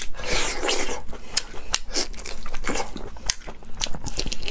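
Close-up eating sounds: biting and chewing braised pig's trotters, with irregular smacks and clicks as the meat and skin are torn off with the teeth.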